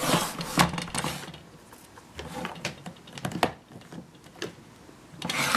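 Hard plastic parts of a Play-Doh soft serve ice cream playset clicking and knocking as they are handled and snapped together, a string of irregular sharp clicks with noisier handling at the start and near the end.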